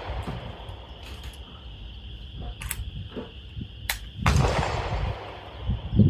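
A rifle shot from another shooter on the range about four seconds in, sharp with a long echoing tail. Small metallic clicks come as the single-shot bolt-action rifle at the bench is loaded and its bolt worked, and a heavy low thump follows near the end.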